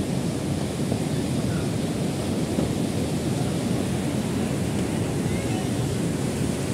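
Mountain river rushing over boulders below a footbridge: a loud, steady roar of white water.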